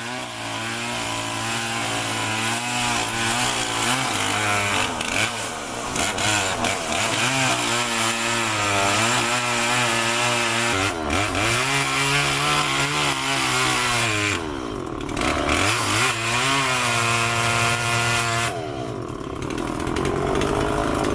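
Chainsaw running and cutting into wood. Its engine pitch drops and climbs back several times as the saw eases off and bites in again.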